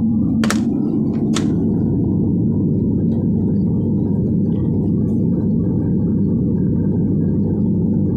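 An F&D 5.1 home theater, just brought back to life by a power supply repair, plays a loud, steady, low rushing noise through its speaker while its tuner sits on 87.7 FM, the noise of an untuned radio. Two sharp clicks come about half a second and a second and a half in.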